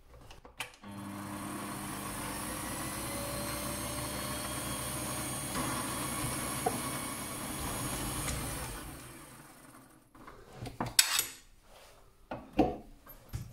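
Mini lathe motor starting with a click, running steadily with a hum and a high whine, then spinning down about eight seconds in. A few sharp knocks follow as the freshly bored plastic bushing is handled and test-fitted on the metal brace rod.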